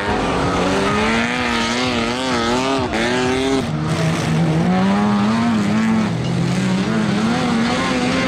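Several stripped-down racing combine harvesters running hard on a dirt track, their engines revving up and down about once a second as they bounce over the bumps. About four seconds in, a lower, steadier engine note comes in as a machine passes close.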